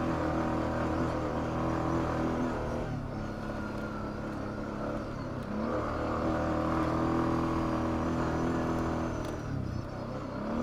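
ATV V-twin engine running at low trail speed, easing off about three seconds in, picking back up, then easing off and rising again near the end.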